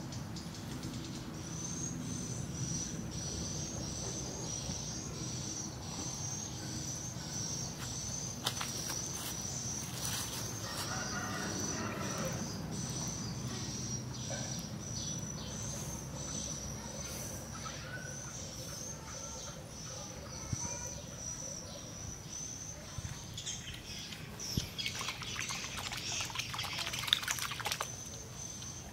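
A continuous high-pitched chirring animal call that wavers slightly, over light rain falling on pond water. Near the end there is a louder spell of splashing with clicks as the water around the float is disturbed.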